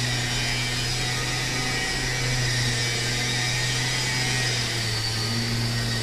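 Electric circular saw running steadily: a low motor hum with a high blade whine above it, shifting slightly in pitch a couple of times.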